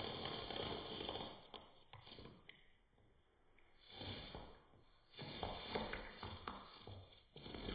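Faint breathing through the nose and swallowing as a person drinks steadily from a large plastic water jug, dropping away briefly twice.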